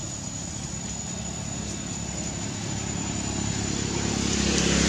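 A motor vehicle's engine approaching, its steady low hum growing louder toward the end.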